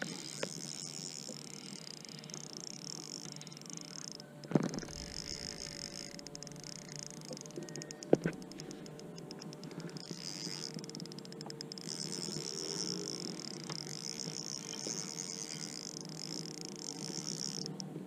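A high, steady insect chorus that thins out for several seconds in the middle, with two sharp knocks about four and eight seconds in.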